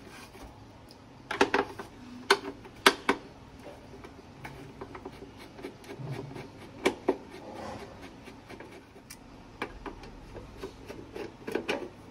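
Screwdriver turning out the screws from the plastic base of a mixer grinder, with scattered sharp clicks and knocks of the plastic body being handled and the screws set down.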